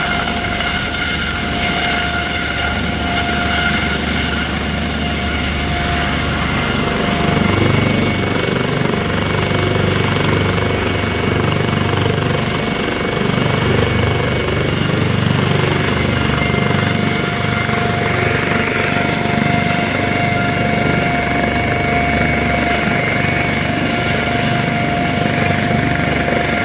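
Helicopter running on its helipad: a steady turbine whine over the low, uneven beat of the rotor blades, which grows stronger about a quarter of the way in.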